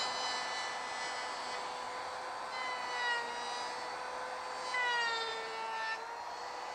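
Router fitted with a 3/16-inch roundover bit running, a steady high whine that drops in pitch and gets louder twice, around three and five seconds in, as the bit cuts the edges of the wooden base.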